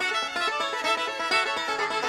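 Background music with plucked and bowed strings in a lively, quick-stepping tune.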